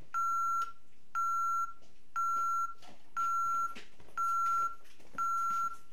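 Alarm keypad of an ADT Safewatch Pro 3000 (Ademco Vista) panel sounding its exit-delay warning after being armed away: a steady, single-pitched beep about half a second long, repeated once a second, six times.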